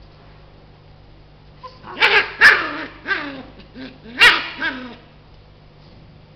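Puppy barking: a run of about six short barks over some three seconds, starting about two seconds in.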